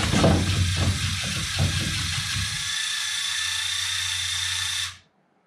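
The electric motors of a LEGO Technic rover running with a steady whirring hum while its wheels push against a wooden step. A few knocks of the wheels and plastic frame against the planks come in the first two seconds. The sound cuts off suddenly near the end.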